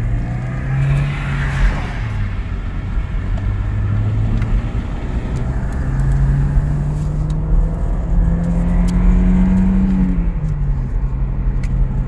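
2009 Toyota Corolla's 1.8-litre four-cylinder engine heard from inside the cabin, pulling under acceleration. Its pitch climbs and drops sharply twice, at upshifts of the manual gearbox. The car carries a cylinder 4 misfire code (P0304), but here the engine does not feel like a dead miss and is not logging misfires.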